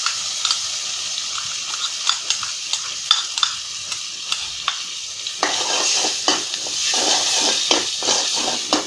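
Spice paste frying in hot oil in a metal pan: a steady sizzle with the scraping clicks of a spatula stirring it against the pan. The sizzling grows fuller and louder about five seconds in, as the masala is worked into the oil.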